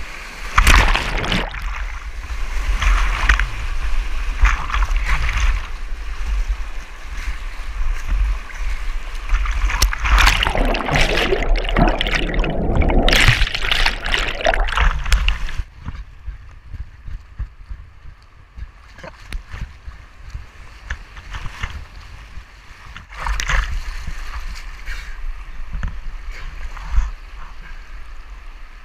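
Whitewater of a flooded river rushing and splashing over a kayak and its deck-mounted camera. About halfway through, the sound drops to a duller, quieter gurgle for several seconds while the camera is under water, then the splashing picks up again.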